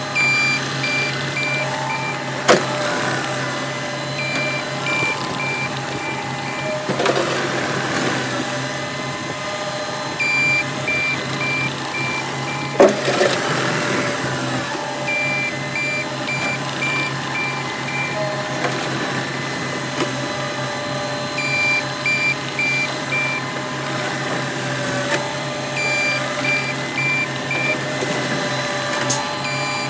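Caterpillar 259D compact track loader's diesel engine running under load while it shuttles back and forth pushing dirt, its backup alarm beeping in short runs of about five beeps each time it reverses. A few sharp knocks stand out, two of them loudest.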